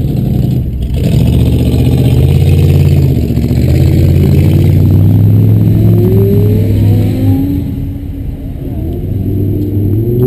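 A car engine running loud as the car pulls away, holding a steady note at first, then rising in pitch as it revs up near the end.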